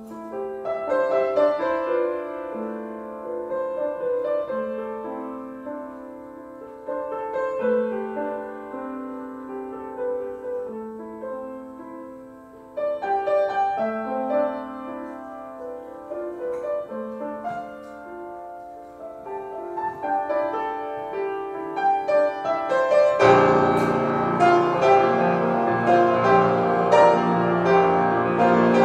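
Solo grand piano improvisation: a fairly sparse melodic passage that swells about three-quarters of the way through into loud, full chords with deep bass notes.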